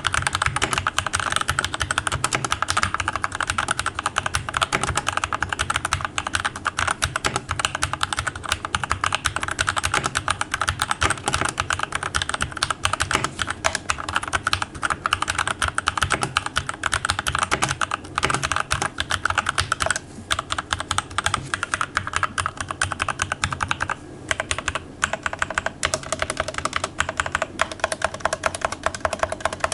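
Fast, continuous typing on a Keychron C1 mechanical keyboard with lubed Gateron Red linear switches and lubed stabilizers: a dense stream of key clacks, with a couple of brief pauses past the middle.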